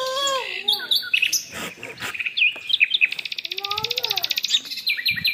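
Birds chirping in short high calls, with a fast, even trill about three seconds in that lasts roughly a second and a half.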